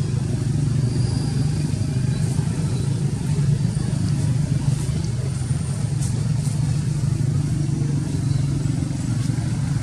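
Steady low engine-like hum that holds the same pitch throughout.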